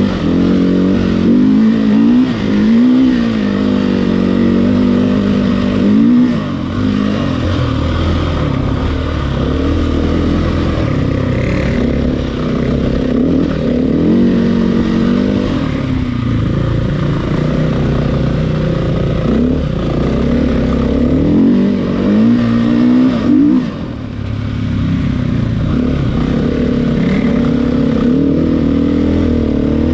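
KTM EXC enduro motorcycle's single-cylinder four-stroke engine revving up and down over and over as it is ridden, the throttle opened and shut every second or two.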